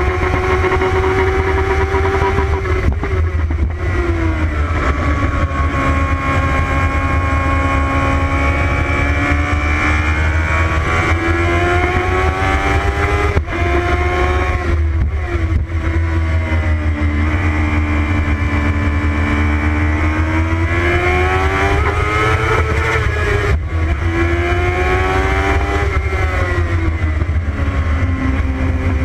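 Formula Promotion single-seater race car's engine at full effort on a lap, revs rising and falling several times with brief breaks at the gear changes, over a steady low rumble.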